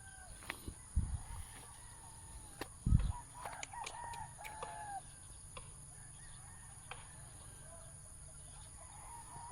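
Chickens clucking and a rooster crowing, faint, with short arching calls clustered a few seconds in. Two low thumps, about a second in and near three seconds, are the loudest sounds.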